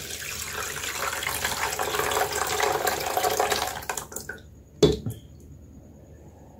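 Milk being poured from a jug into a large cooking pot, a steady splashing pour that tails off about four seconds in. A single sharp knock follows just before five seconds.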